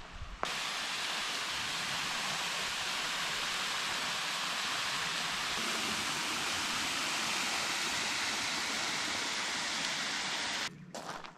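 Steady, even rush of water that starts abruptly about half a second in and cuts off shortly before the end.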